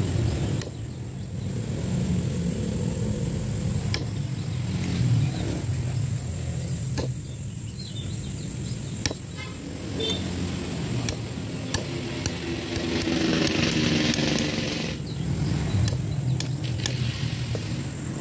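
Scattered light metallic clicks and taps as a steel socket is set on and lifted off a steering gearbox housing to seat a new seal, over a steady low engine hum that swells briefly about 13 seconds in.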